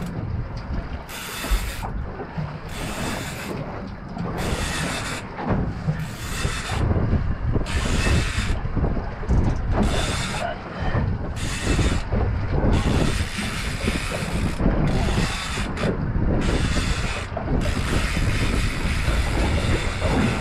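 Fly reel ratcheting in repeated bursts about once a second while a big hooked fish is being fought, with a low rumble underneath.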